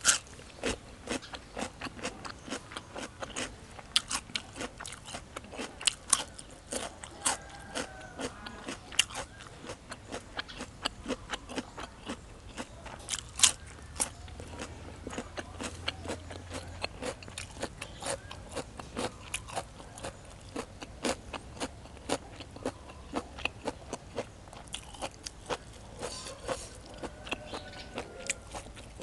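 Close-up crunching and chewing of crisp raw vegetables, with many short sharp crunches a second.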